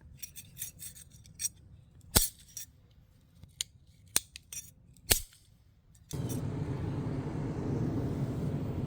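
A series of sharp metallic clicks, taps and clinks as small metal parts are handled and knocked together. About six seconds in, a steady rushing noise starts abruptly and runs on.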